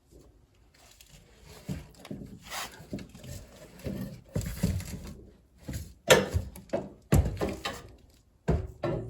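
Irregular clatter of hand tools and metal parts being handled: scrapes, rattles and sharp knocks, the loudest two about six and seven seconds in.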